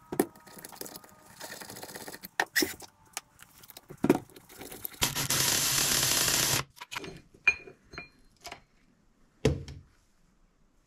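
Allen key loosening and backing out the steel jaw screws of a Bridgeport mill vise: scattered metal clicks and knocks of tool on steel, a steady scraping noise of about a second and a half halfway in, and a short ringing metallic clink a little later.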